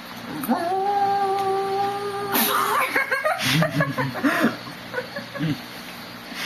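A person imitating a sad dog: one long steady howl of about two seconds, then a run of shorter whines and yelps that bend up and down in pitch.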